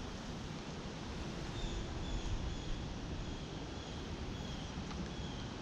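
Outdoor ambience: a steady low rumble with faint, short high chirps repeated every half second or so, a small bird calling.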